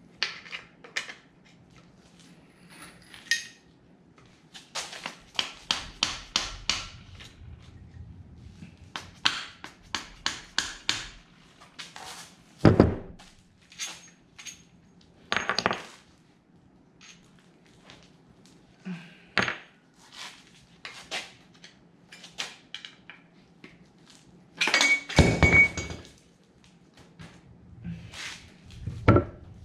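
Metal hand tools and engine parts clinking and knocking while an engine is being unbolted and taken apart. A run of quick clicks comes about a quarter of the way in, then scattered clanks, with the loudest a clatter and ringing metal near the end.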